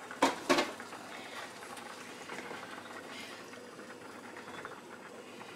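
Wooden spoon stirring a thick cream sauce in a stainless steel saucepan, with two sharp knocks close together near the start and faint scraping and bubbling after.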